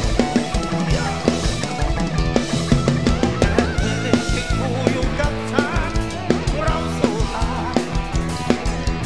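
Live band playing a Thai folk-rock (phleng phuea chiwit) song: drum kit keeping a steady beat under bass and electric guitar, with a bending lead melody line over the top.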